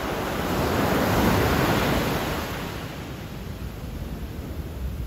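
Ocean surf breaking and washing up a sandy beach. It grows louder about a second in as a wave comes in, then eases off as the wash recedes.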